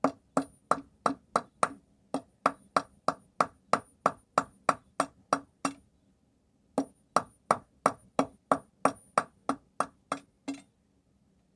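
Hand hammer striking hot steel on a small stake anvil made from an old wagon axle with a carbon tool-steel face, forging a bodkin arrowhead. The blows come evenly at about three a second with a high metallic ring, pause for about a second midway, then resume and stop shortly before the end.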